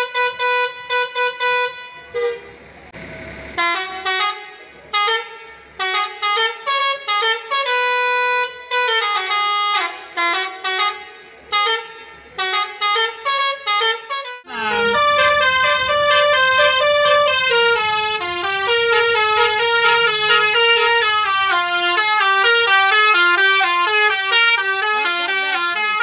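Multi-note musical air horn of a bus playing a tune: short separate blasts at shifting pitches, with a brief hiss of air about two seconds in, then from about halfway a fast, unbroken run of notes.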